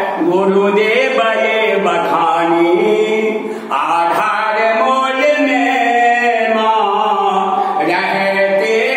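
A man's voice chanting an aarti, a Hindu devotional hymn, in long held notes that glide up and down in pitch, with one short break for breath about three and a half seconds in.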